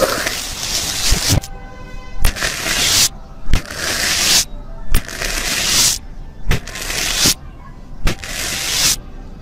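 Foamy slime crackling and popping, close up against a microphone pressed into it, in about six pushes a second or so apart, each opening with a sharp click.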